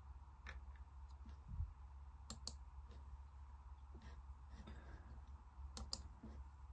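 Faint computer clicks, mouse or keyboard, including two quick pairs of clicks, with a soft low bump about a second and a half in over a steady low hum.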